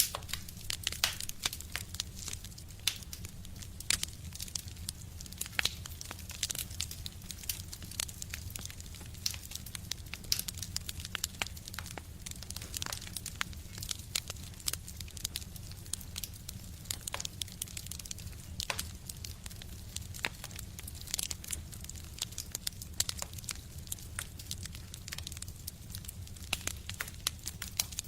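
Wood fire burning in a stove: irregular sharp crackles and pops over a steady low rumble.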